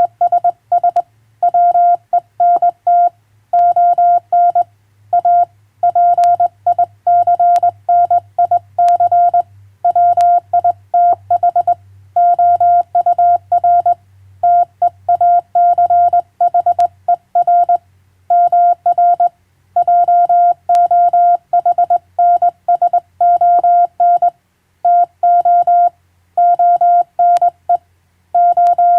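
Morse code sent by hand on a straight key: a single steady sidetone of about 700 Hz keyed on and off in dots and dashes, with short pauses between letters and words.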